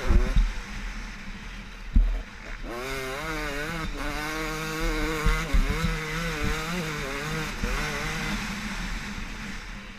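KTM 250 SX two-stroke motocross engine revving hard, its pitch rising and falling again and again as the throttle opens and closes. Two heavy thumps come in the first two seconds.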